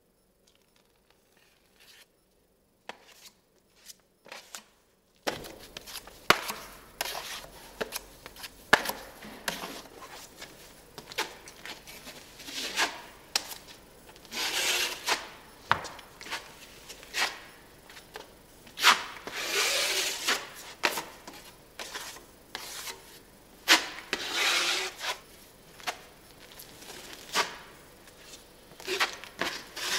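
Wide steel smoothing blade scraping ready-mixed filler across a textured wall in repeated strokes about a second long. Before that come faint clicks of a knife working in the filler tub.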